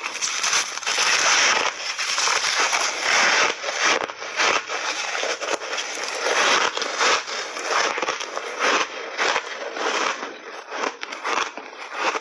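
Crunchy shaved ice being bitten and chewed up close, a dense run of crackling crunches that thins into separate crunches near the end.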